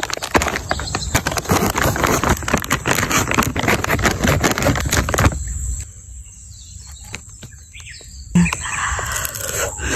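Crinkly plastic snack bag crackling for about five seconds as it is pressed and cut open with a knife, then going quiet, with a short knock and lighter rustling near the end.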